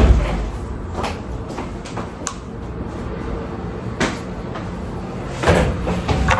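A mini tripod with a phone clamp being handled on a tabletop: a low thump at the start, then scattered small clicks and knocks about a second apart as it is moved and adjusted.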